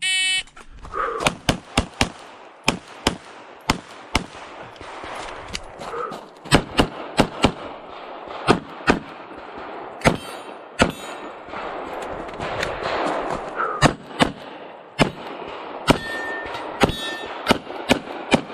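A shot-timer start beep, then a USPSA stage run of rapid pistol fire: strings of shots, often in quick pairs, with short pauses between. Steel targets ring with a clang on some hits.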